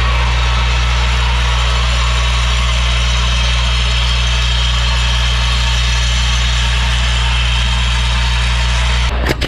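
Vibratory bowl feeder running: a steady low hum with the continuous rattle of loose plastic clips jostling along its spiral feed track. It gives way to sharp clacks near the end.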